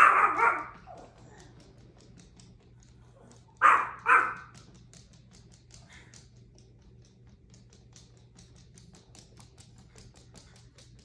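Chihuahua barking: one bark at the start and two quick barks about four seconds in. In between and afterwards, faint light clicks of small dog claws on a hardwood floor.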